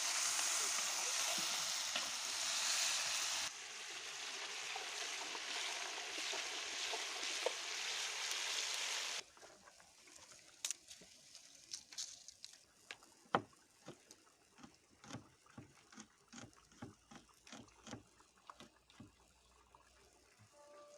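Food frying in oil in a pan, with a loud, even sizzle that cuts off about nine seconds in. A much quieter stretch of scattered light clicks and knocks follows.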